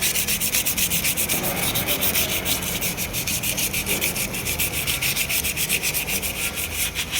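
Sandpaper rubbed in rapid, even strokes over a rear drum brake shoe lining, roughing the lining surface to cure brake noise.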